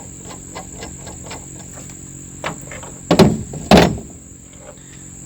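Recoil starter cord of a Poulan Farmhand 2500 chainsaw pulled out and let rewind, two quick loud rasps about half a second apart: the new starter pulley winding the cord back in properly.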